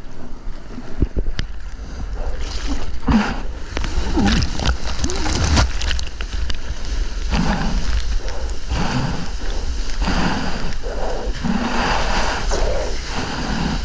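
Water splashing and sloshing around a surfer's GoPro as he paddles through the surf, in uneven surges over a steady low rumble of water and wind on the microphone.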